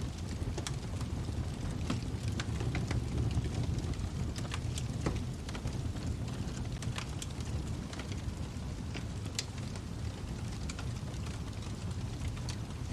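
Wood fire crackling in a fireplace: irregular sharp pops and snaps scattered over a steady low rumble of the flames.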